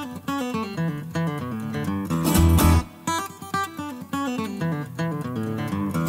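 Background music: a plucked guitar melody of quick, stepping notes.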